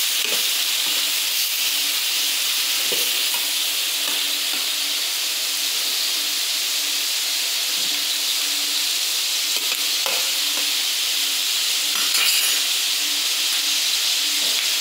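Squid, cuttlefish and monkfish pieces sizzling steadily in hot oil in a steel paella pan over a high gas flame, fried hard so the cuttlefish doesn't release its water. A few faint clicks come through the sizzle.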